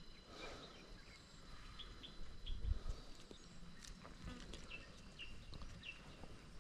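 Small birds chirping faintly outdoors: short high chirps repeating every half second to a second, with a few low thumps about two and a half seconds in.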